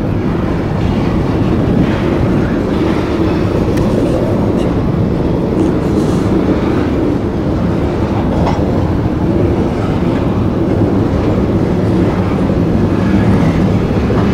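Loaded CSX coal hopper cars rolling past at close range: a loud, steady rumble of steel wheels on the rails, with occasional faint clicks.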